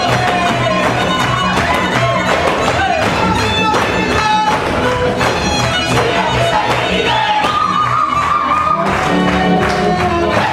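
Hungarian folk dance music played live by a string band: a fiddle melody over a double bass keeping an even beat, with the dancers' steps and stamps on the wooden stage.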